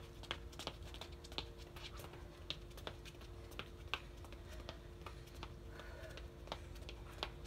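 Sneakers tapping and scuffing on a concrete patio in quick footwork steps: light, irregular taps, a few a second. A faint steady hum runs underneath.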